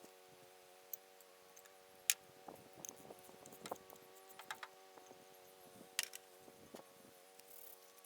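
Scattered light clicks and taps of hand work with tools and small parts, a dozen or so at irregular intervals, over a steady background hum.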